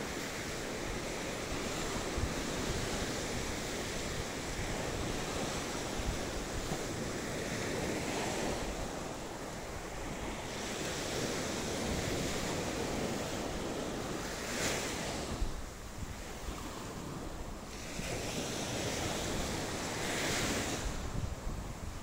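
Sea waves breaking and washing up on a sandy beach, the surf swelling and easing several times, with wind rumbling on the microphone.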